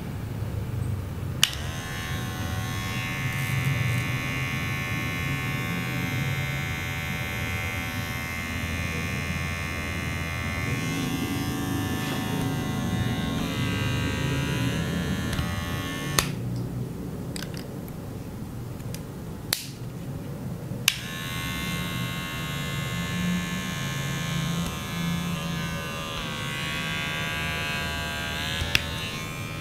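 Kemei KM-1996 all-metal cordless hair clipper switched on with a click and running with a steady buzz, its pitch sagging briefly twice. It is switched off a little over halfway and back on about five seconds later, after a couple of clicks. The motor runs slow, which the reviewer reckons at about 5500 RPM.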